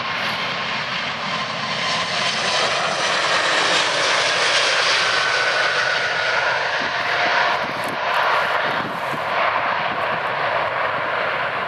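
Jet engine noise of an Airbus A380 passing low on its landing: a loud, steady rush with a faint whine that glides in pitch about halfway through.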